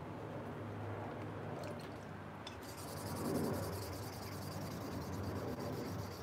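A knife blade being touched up by hand: faint, quick rubbing strokes, a fine high scraping that starts about two and a half seconds in.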